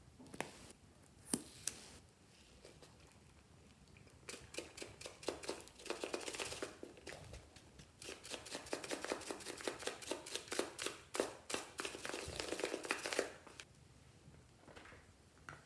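Slime being squished and worked by hand, giving a dense run of small rapid clicks and pops from about four seconds in until near the end. A couple of single sharp clicks come in the first two seconds.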